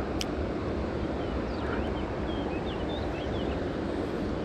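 Steady rush of river water at an outflow, with a few short high chirps in the middle.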